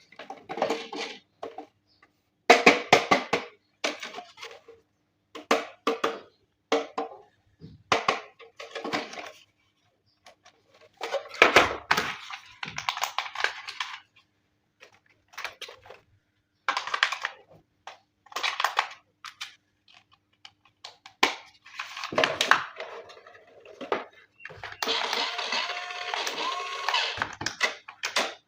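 Short bursts of clattering and rustling from hard plastic toy parts and packaging being handled, separated by silent pauses, with a longer, busier stretch near the end.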